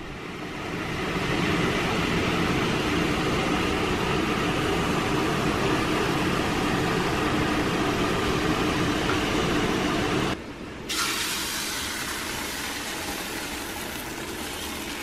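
Steady rushing hiss of hot water and steam while filter coffee brews. After a cut about ten seconds in, it gives way to a slightly quieter, brighter hiss as batter is poured into a frying pan.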